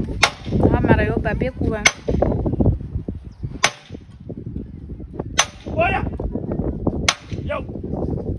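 Five sharp cracks at an even pace, about one every second and three-quarters.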